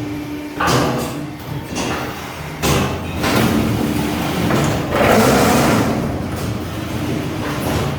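Concrete block press machine running: its vibrator motors hum steadily while the mould and press parts make repeated scraping, rattling clanks, the loudest and longest near the middle.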